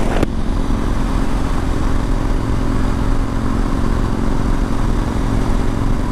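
Suzuki V-Strom 1000's V-twin engine running steadily at highway speed under heavy wind rush on the microphone, with a brief click about a quarter second in.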